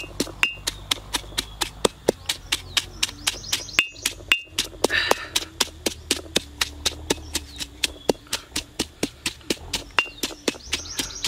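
A stone pestle pounding red chilies and salt in a stone mortar, with steady sharp knocks at about four a second.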